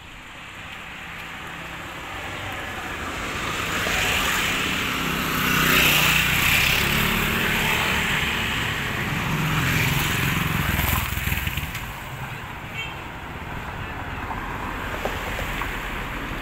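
Motorcycles and a motorcycle tricycle passing along the road, their engine noise swelling to its loudest in the middle stretch and then easing off.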